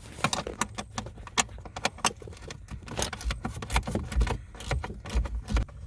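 Metal hand tools clinking and clattering in quick, irregular clicks, with a few dull low bumps in the second half, as a wrench is found and handled.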